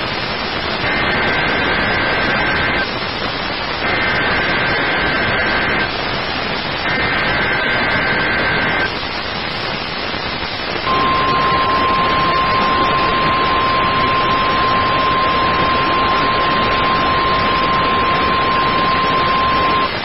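NOAA Weather Radio Emergency Alert System activation heard through static hiss: three two-second bursts of warbling SAME header data tones, then a single steady 1050 Hz warning alarm tone held for about nine seconds. The tones open a tornado drill warning broadcast.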